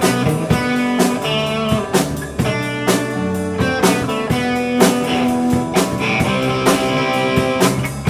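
Instrumental band music with guitar, bass and a drum kit keeping a steady beat, no vocals yet.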